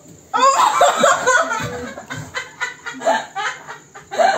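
People laughing in short bursts, starting about a third of a second in, with a few voices mixed in.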